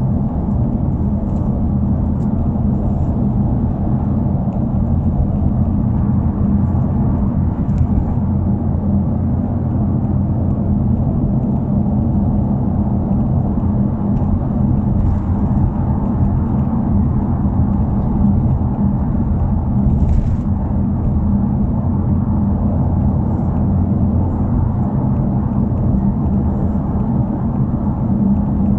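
Subaru WRX's turbocharged flat-four engine and exhaust running at a steady pace while the car drives along, a steady low drone with no change in engine speed. The muffler, said to have been fixed, runs without its earlier abnormal noise.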